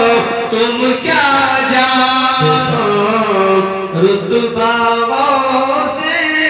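A man singing a naat, a devotional poem in praise of the Prophet, into a microphone, drawing out long held notes with slow melodic glides and ornaments.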